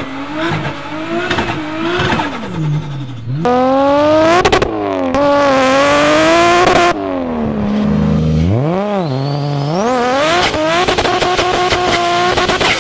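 Turbocharged car engines revving and accelerating hard, in several short cuts one after another. The engine note rises and drops again and again, and a thin high whine climbs with the revs near the end.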